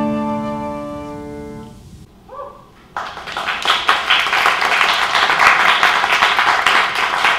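The last held chord of a musical piece fades out over about two seconds, then about three seconds in an audience breaks into steady applause, many hands clapping.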